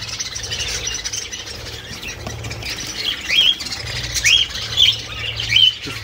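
Budgerigars calling: scattered short chirps and rising squawks, the clearest ones in the second half, over a low steady hum.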